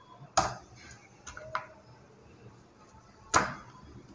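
Kitchen knife slicing through an onion and striking a plastic cutting board: two sharp knocks about three seconds apart, with two faint taps between them.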